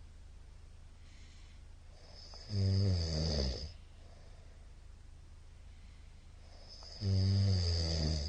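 A man snoring heavily in his sleep: two loud snores, each about a second long and roughly four and a half seconds apart, with quiet stretches between them.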